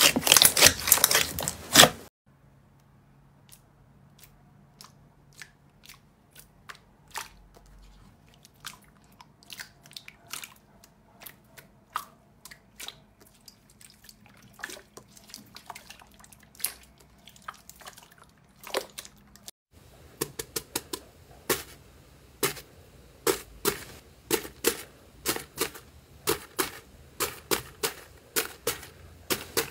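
Slime being squeezed and pressed by hand. Dense crackling pops from green slime for about the first two seconds, then a long quieter stretch of scattered sticky clicks and pops as clear red slime is pressed. From about twenty seconds in comes frequent crunchy popping as foam-bead slime (floam) is kneaded.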